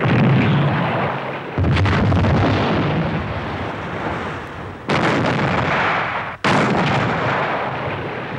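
Heavy naval gunfire: four sudden, loud blasts, each trailing off in a long rumble.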